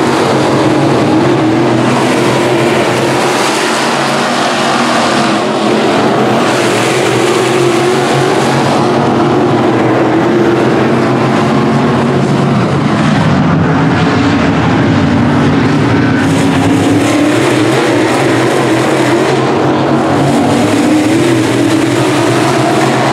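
Dirt late model race cars racing in a pack, their V8 engines loud and continuous, the note rising and falling as the cars pass close by.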